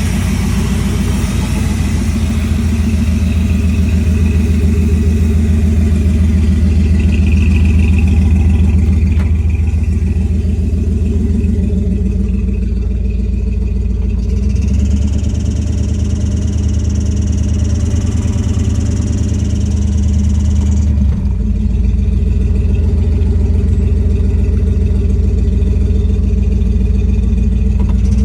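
Car engine running steadily with an unidentified noise that the owner hears when the car is put into neutral and sometimes while driving. A higher hiss comes in about halfway and stops abruptly some seconds later.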